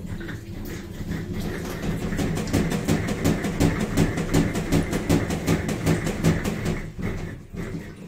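Panasonic NA-F65G7 top-load washing machine running with a steady low hum and a fast rhythmic knocking clatter. The clatter grows louder about two seconds in and fades near the end. It is the machine's abnormal problem noise.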